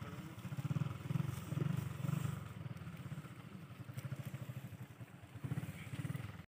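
Motorcycle engine running low and steady with an even throb. It cuts off suddenly near the end.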